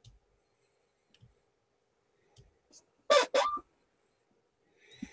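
A few faint computer mouse clicks, then a sudden loud two-part throat sound from the person at the desk, like a short cough, about three seconds in, and a soft breath near the end.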